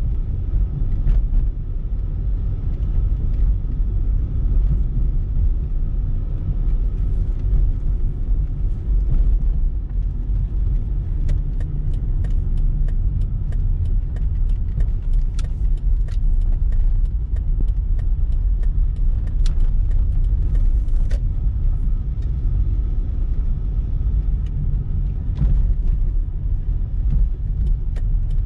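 Car driving, heard from inside the cabin: a steady low road-and-engine rumble, with scattered sharp clicks and rattles through the middle stretch.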